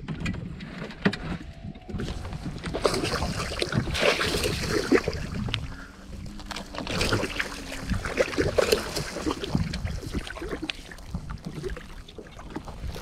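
A muskie thrashing and splashing at the surface beside the boat while it is brought into a landing net, in irregular bursts that start about two seconds in. Wind rumbles on the microphone underneath.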